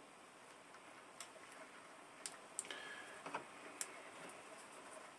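Hands handling a small taped receiver and its wires, giving a few scattered, faint sharp clicks and light rustling.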